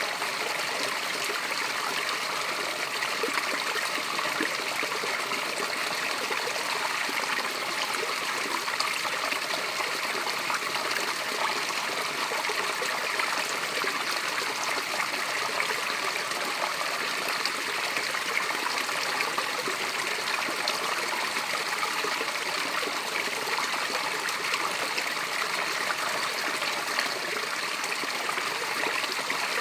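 Water running down a small natural waterfall, a steady, even rush with little low rumble.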